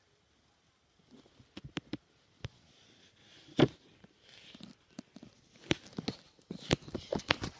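Handling noise from a phone being moved about: scattered knocks and rubbing on the body near the microphone, with one loud knock about three and a half seconds in and quicker knocks near the end.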